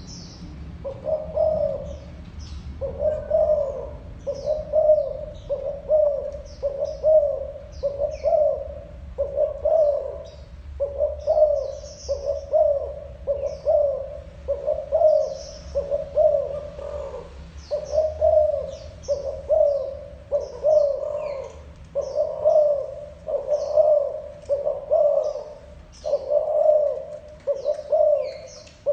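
Spotted dove giving its repeated 'gù' coo: short low coos about one a second, in runs of a few. Faint high chirps of small birds sound in between.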